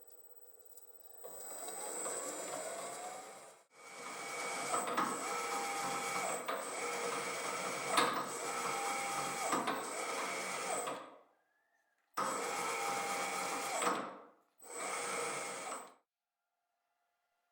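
Restored drill press drilling into metal in four bursts that start and stop abruptly, with a regular tick about every 0.8 s.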